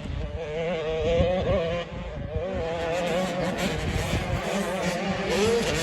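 Motocross dirt bike engines revving on the track, their pitch wavering up and down as the riders work the throttle.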